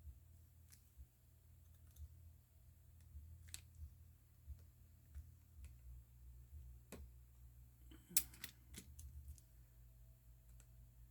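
Faint, scattered small clicks of precision repair tools against a phone's small parts, with a brief cluster of sharper clicks about eight seconds in.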